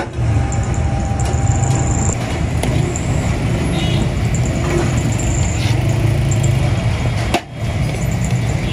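Steady low engine hum mixed with street noise, briefly dropping out about seven seconds in.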